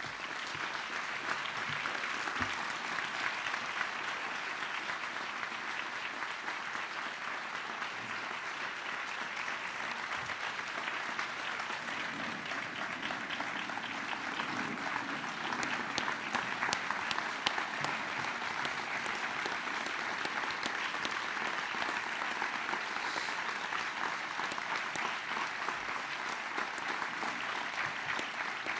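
A large audience clapping in a long, steady round of applause.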